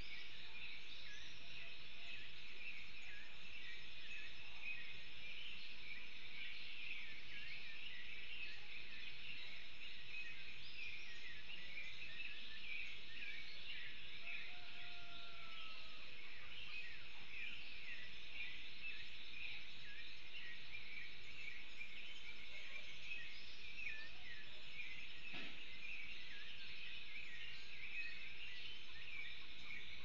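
Dense chorus of many birds chirping over a steady hiss, with one lower, arching whistled call about halfway through.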